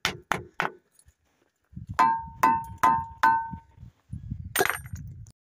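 Ringing rocks ('bell stones') struck by hand: a quick run of sharp taps, then four ringing, bell-like strikes about half a second apart, and one more strike near the end.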